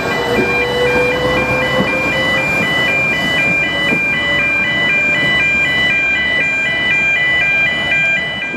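Electronic two-tone warning alarm switching back and forth between two high pitches about three times a second, stopping abruptly near the end, over a faint steady rumble.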